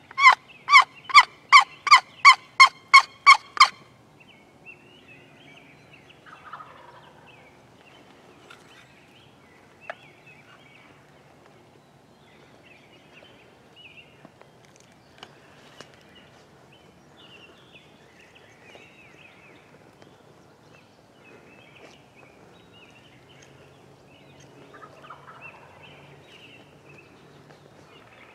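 Turkey yelps: a loud, close series of about eleven evenly spaced calls, roughly three a second, which stops about three and a half seconds in. Faint scattered bird chirps follow.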